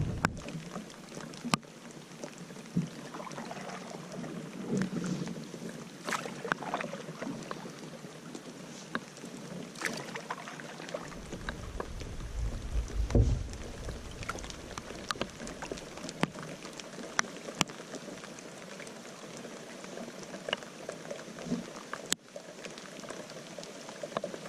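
Solo canoe paddling: the paddle dipping and pulling through the water, with splashes and drips off the blade and many small clicks and taps scattered throughout. A brief gust of wind hits the microphone about halfway through.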